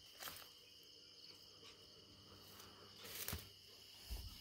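Faint, steady high-pitched chirring of crickets, with a soft knock about three seconds in.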